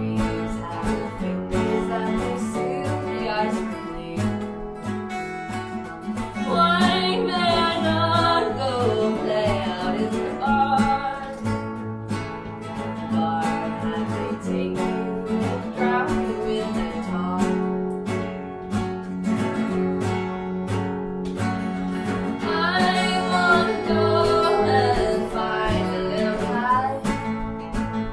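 Acoustic guitar music from a folk song, strummed and picked over a steady low bed of held notes. A wavering melody line comes in over it twice, for a few seconds each time.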